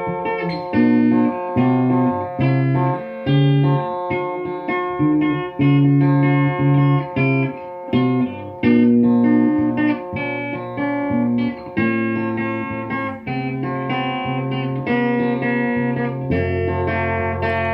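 Guitar playing a picked melody over low bass notes, settling on a held chord near the end.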